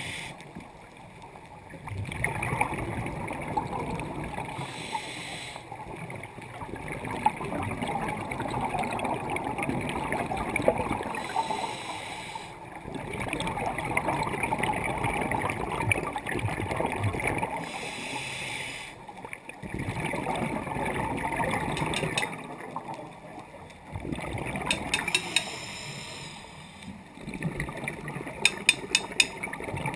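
Scuba diver breathing through a regulator underwater: a short hiss on each inhale, then a few seconds of bubbling exhaust on each exhale, repeating about every six seconds. A few sharp clicks come near the end.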